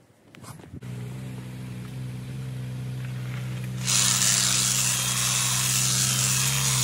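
Honda HHH36AXB hedge trimmer's small four-stroke engine running steadily, then revving up about four seconds in, much louder, with the clatter and hiss of the reciprocating blades.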